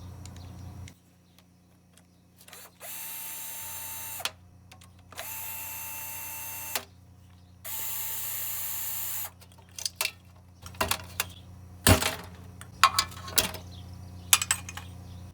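Power drill running in three steady bursts of about a second and a half each, driving out the small 10 mm bolts on a lawnmower being stripped. Scattered metal clicks and clanks follow, with one sharp knock near twelve seconds in.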